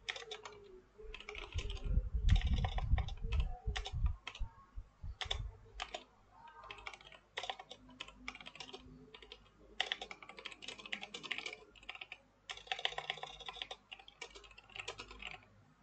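Typing on a computer keyboard: irregular runs of keystrokes with short pauses between them, loudest about two to three seconds in, where the strokes come with low thuds.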